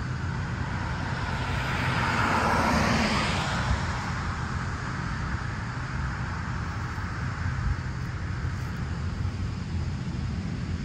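A vehicle passes on the road, its noise swelling to a peak about two to three seconds in and then fading, over a steady low rumble of traffic.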